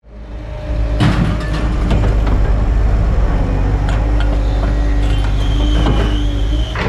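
Liebherr wheeled scrap-handling machine working: a steady, heavy diesel rumble with scattered clanks of scrap metal, and a high hydraulic whine for a second or two near the end.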